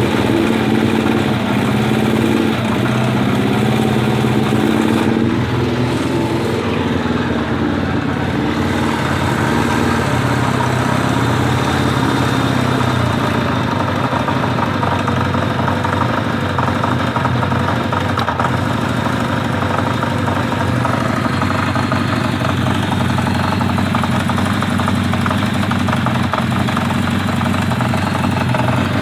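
1980 Kawasaki Z500 B's air-cooled inline-four engine running steadily at idle, with a knocking and ticking whose cause the owner does not know.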